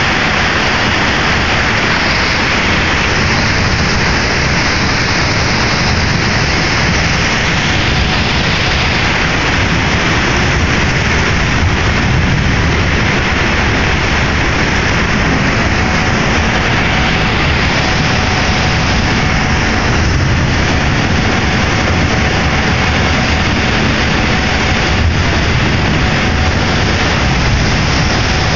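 Ferry pushing through broken lake ice: a loud, steady rush of engine drone and ice grinding along the hull, with a faint hum. A couple of light knocks come in the second half.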